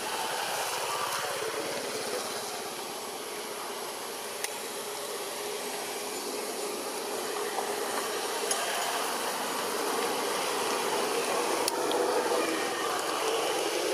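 Steady outdoor background hiss with a faint hum, broken by a few small clicks.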